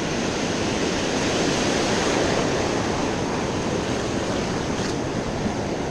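Ocean surf breaking and washing around the wader's legs. The rush of whitewash swells to its loudest about two seconds in, then slowly eases.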